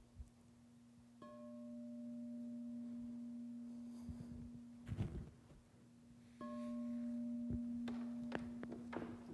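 A bell-like ringing tone, struck twice, about a second in and again after about six seconds, each time holding steady and slowly fading, with a few faint knocks in between.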